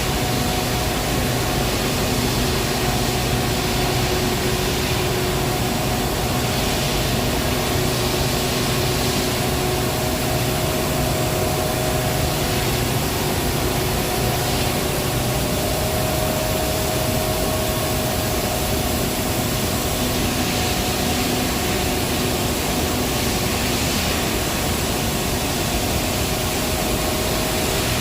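Heavy industrial machinery running steadily: a dense, unbroken hiss with a few faint steady hum tones beneath it, holding level throughout.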